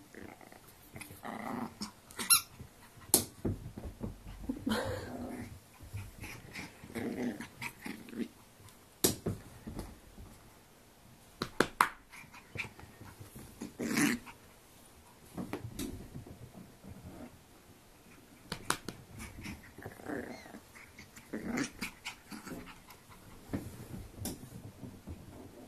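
Bichon Frise puppy giving short bursts of play growling, on and off, with scattered sharp clicks and knocks in between.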